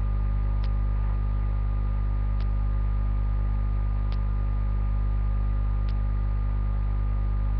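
Steady electrical mains hum in the recording, with a faint short tick about every second and three-quarters.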